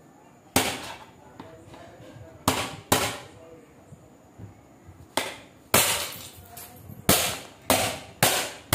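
Pliers being struck against the hard plastic casing of a mini cooler to break it open. It is a series of about nine sharp knocks, a second or two apart at first and coming faster, about twice a second, in the second half.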